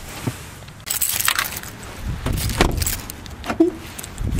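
Keys jangling and clothes rustling as a person climbs out of a car, with several sharp knocks as the car door is shut.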